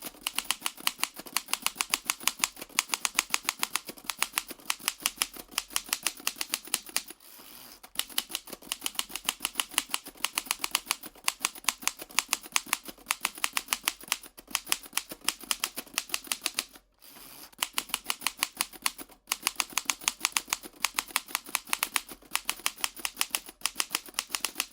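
Vintage manual typewriter being typed on quickly: a rapid run of sharp key strikes, about six to eight a second. Twice the strikes stop for about a second, filled by a softer steady noise.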